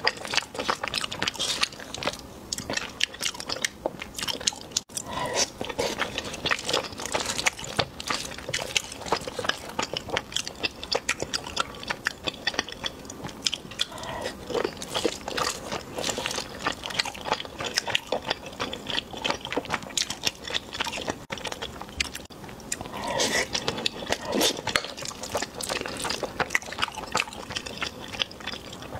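Close-miked chewing and eating sounds of a person working through spoonfuls of braised pork belly and cooked grain: a dense, continuous run of small wet clicks and smacks.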